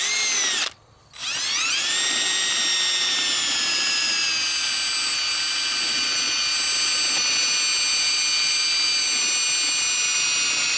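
DeWalt 20V MAX XR cordless drill boring into pumpkin flesh: a short burst, a brief stop, then from about a second in a long steady run. Its whine climbs as it spins up, then settles a little lower as the bit bites.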